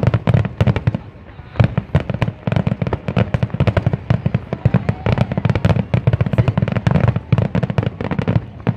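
Aerial fireworks finale: a rapid, near-continuous barrage of shell bursts going off many times a second, with a brief dip about a second in, thinning out near the end.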